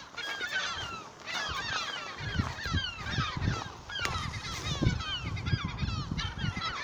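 Several gulls calling over and over, many short falling squeals overlapping. Low thumps and rumble come in from about two seconds in.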